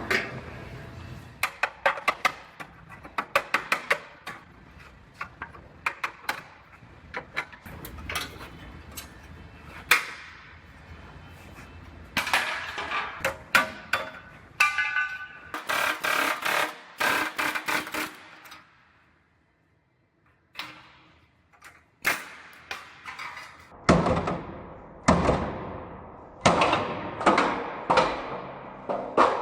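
A long run of sharp metal knocks and clanks, many with a short ringing tail, as from hammering and clamp work on steel. There is a few seconds' lull about twenty seconds in, and then a closer series of strikes.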